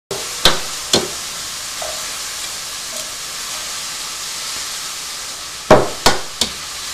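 Eggs being cracked against the rim of a plastic mixing bowl: a few sharp knocks, two in the first second and three close together near the end. Under them runs a steady sizzle of sausage frying in a pan.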